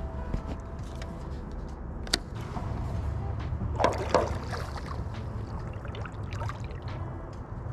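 Water sloshing against a small boat's hull under a steady low wind rumble, with a sharp knock about two seconds in and a brief splashy clatter about four seconds in.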